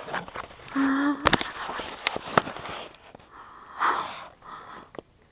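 A woman's short wordless hum about a second in, with sniffing breaths close to the microphone and scattered sharp clicks.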